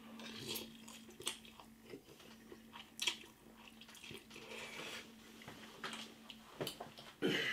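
A person eating noodles from a bowl with a fork: quiet chewing, with scattered soft clicks.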